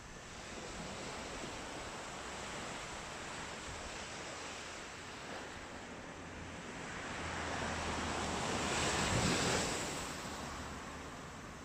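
Sea waves washing onto the beach, swelling into a louder wave that breaks about nine seconds in and then falls back.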